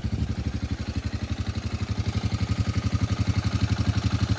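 Small engine, freshly rebuilt with new piston rings, idling steadily with an even, rapid pulse.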